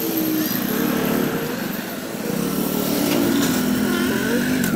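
Motorcycle engine of a sidecar tricycle running on the move, heard from inside the sidecar. Its note wavers and gets louder a little past halfway, as it picks up speed.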